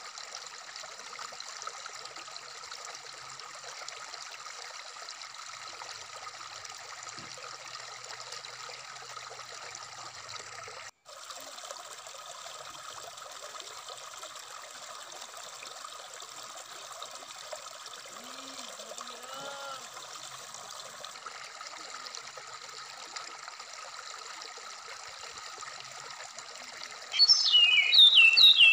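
Stream water flowing over rocks, a steady rushing trickle, with a momentary cut-out about eleven seconds in. Near the end, loud bird song breaks in: quick chirping phrases of a brown-chested jungle flycatcher.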